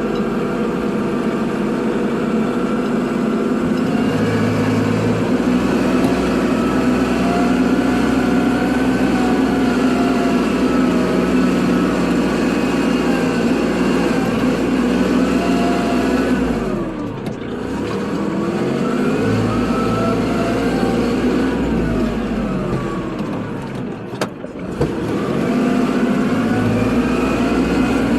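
Kubota tractor's diesel engine running steadily while plowing snow. Its pitch drops and climbs back twice, about two-thirds of the way through and again near the end.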